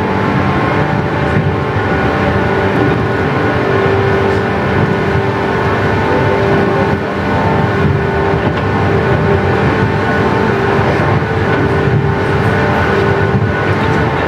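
A 117 series electric multiple unit heard from inside the passenger car, running at a steady speed. Its DC traction motors and gearing hum at a constant pitch over the rumble of wheels on rail.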